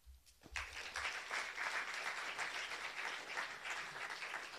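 Audience applauding, starting about half a second in: many hands clapping at once.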